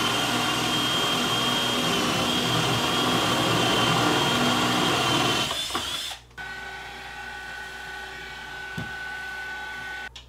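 Cordless drill with a 5/8-inch spade bit boring through a kitchen-counter desktop at steady speed; it stops about six seconds in. A handheld stick vacuum then runs steadily and more quietly over the freshly drilled hole, and switches off near the end.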